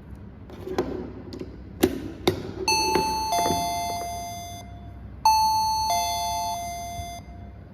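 Plug-in indoor doorbell chime playing a two-note ding-dong twice, once about two and a half seconds in and again about five seconds in, each note ringing and fading. A few short clicks come before the first chime.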